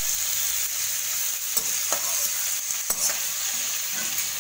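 Halved tomatoes sizzling steadily in hot mustard oil in a steel kadai, while a metal spatula stirs them, scraping and clinking against the pan a few times.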